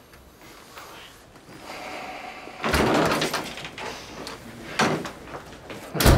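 A room door being opened and then shut, with a sharp thud near the end as it closes.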